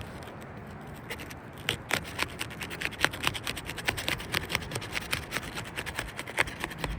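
Stiff asphalt roof shingles being worked loose, an irregular run of crackles and scrapes that comes faster from about two seconds in as their seal strips break away.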